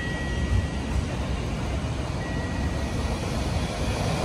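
Low rumble of an approaching freight train still far down the line, growing louder near the end, with a thin steady high whine heard twice.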